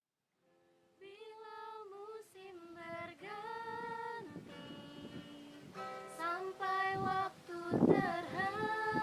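A female voice singing a melody unaccompanied, starting about a second in, with a brief thump near the end.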